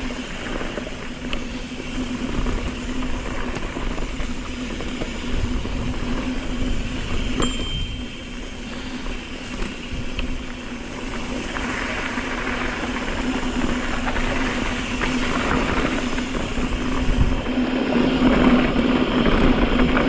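Wind rushing over the microphone and tyres rolling on dirt and loose rock as a mountain bike descends fast, with a deep rumble throughout and one sharp click about seven and a half seconds in. The noise grows louder over the last few seconds.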